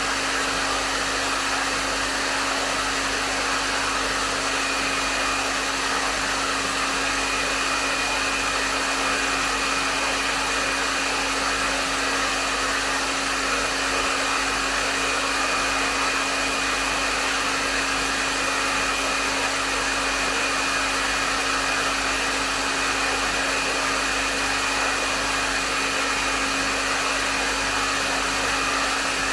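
Hair dryer running continuously, with a steady rush of blown air, a low motor hum and a faint high whine, all unchanging.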